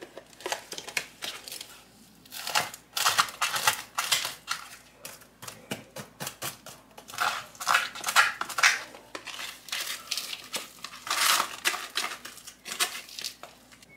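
Crinkling and rustling of a herb packet in many short, irregular bursts as an eight-herb mixture is tipped out of it.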